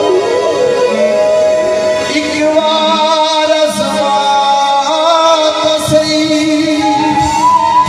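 Live geet-ghazal music: a male singer holding long, wavering notes over a harmonium, a bansuri (bamboo flute) and tabla.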